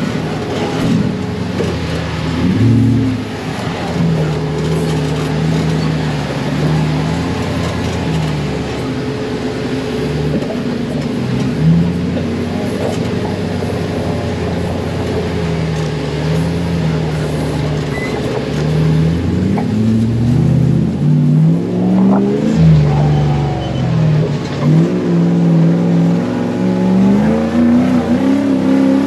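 Off-road buggy's engine running under load on a dirt track, its pitch rising and falling with the throttle; in the last third it climbs in several steps as it revs up.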